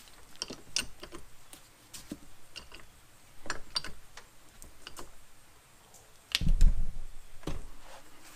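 Steel bead bar of a manual mini tire changer clicking and knocking against the rim and center post as a small mower tire's bead is levered around the rim, with a heavier thump about six and a half seconds in.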